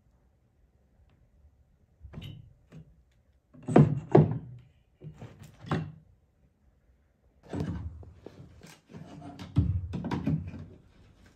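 Ceiling trim strip being pried loose with a screwdriver: a series of irregular knocks and scrapes as the strip shifts against the ceiling, the loudest about four seconds in and again near ten seconds.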